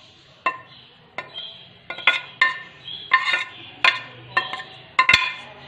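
A spoon clinking and tapping against a plate as chopped onion is knocked off into a glass dish: about a dozen irregular sharp clinks, with the loudest near the end.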